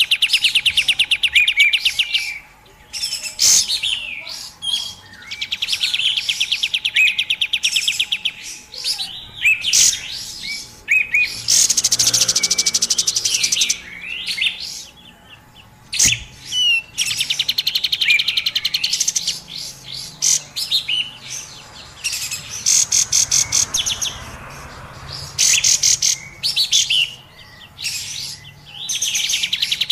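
Lure recording of kapas tembak birds calling: fast, rattling trains of high chirps repeated in bursts of about two seconds with short gaps between, mixed with other sharp single calls.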